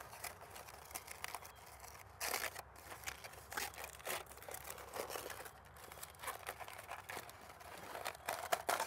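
Aluminium foil packet being unfolded and pulled open by hand, crinkling and crackling irregularly throughout.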